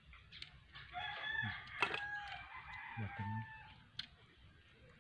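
A rooster crowing once, a long drawn-out call from about a second in that lasts roughly two and a half seconds. A few sharp clicks come with it, the loudest partway through.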